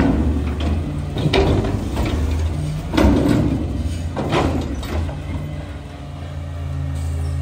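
Autocar WX front-loader garbage truck dumping a steel dumpster of bulky waste over its hopper: several loud metal bangs and clunks, about one every second and a half, as the bin is tipped and shaken empty, over the truck's engine running steadily under hydraulic load. The banging stops after about five seconds and the engine hum carries on alone.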